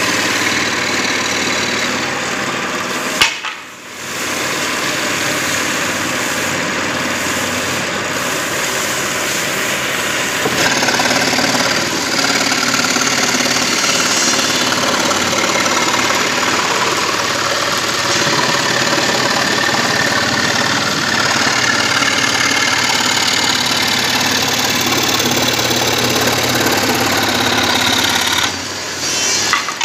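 Electric woodworking machine running steadily with a loud, even noise, dropping away briefly about three seconds in and again near the end.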